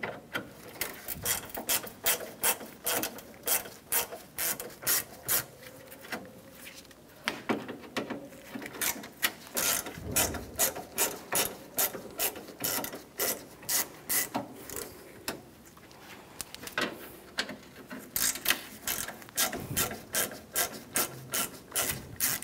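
Ratcheting Phillips screwdriver clicking in runs of about two to three clicks a second as screws along the top of a grille are backed out. There are short pauses between screws.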